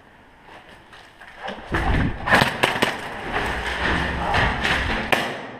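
Knocking and rumbling on a body-worn camera as the player moves quickly, with several sharp knocks over about three seconds. It starts and stops abruptly.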